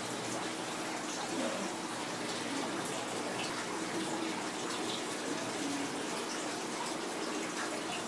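Steady rush of running water from the aquarium's water circulation, with a faint low hum underneath and small scattered high ticks.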